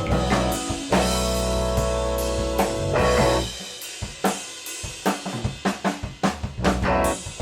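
A band playing rock music. About halfway through, the bass and guitar drop out and the drum kit plays alone, a break of separate snare and kick drum hits with cymbals. The band comes back in near the end.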